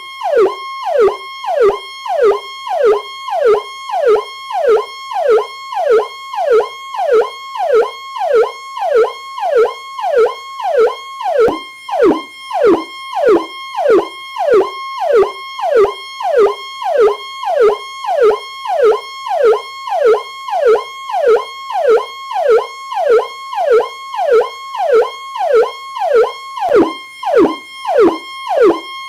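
Police siren on its Powercall tone: a high held note that drops in a quick downward swoop, repeating about one and a half times a second.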